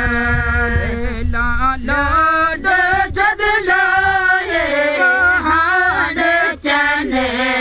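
A woman singing a folk song unaccompanied. A long held note gives way, about two seconds in, to a winding, ornamented melody with short breaths between phrases.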